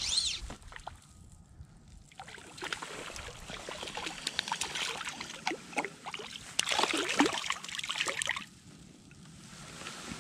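A hooked trout splashing and thrashing at the water's surface as it is drawn in on a fly line. The splashing starts about two seconds in, is loudest a little past the middle and dies down near the end.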